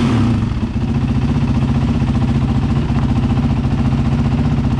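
Dirt bike engine, freshly kick-started, dropping back from a brief rev right at the start and then idling steadily with an even firing pulse.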